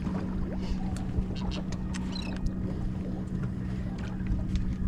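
Steady motor hum aboard a fishing boat, with a low rumble underneath and scattered light clicks and knocks.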